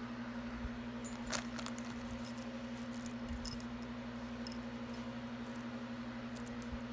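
Small metal jewelry pieces clinking and jingling as they are handled, in a cluster of light clicks in the first half and a few more near the end, over a steady low electrical hum.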